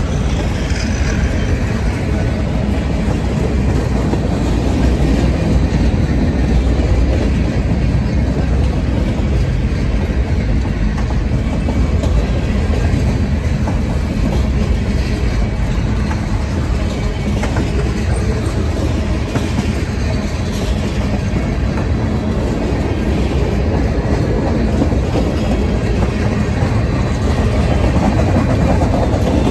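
Freight train cars (covered hoppers, tank cars and boxcars) rolling slowly past, a steady rumble and clatter of steel wheels on the rails.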